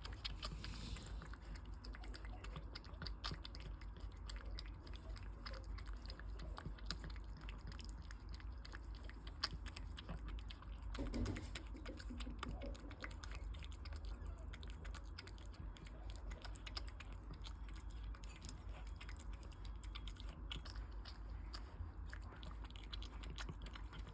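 Cat eating wet food with very noisy smacking and chewing: a steady stream of quick, irregular wet clicks from its jaws and tongue.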